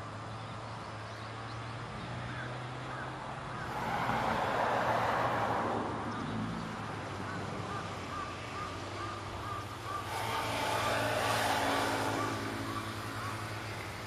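Two vehicles passing on a road, each swelling up and fading away over a couple of seconds, about four seconds in and again about ten seconds in, over a steady low hum.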